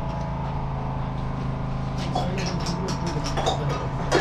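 Teacups and a spoon clinking against crockery and metal mugs several times over a steady low hum, with voices in the background.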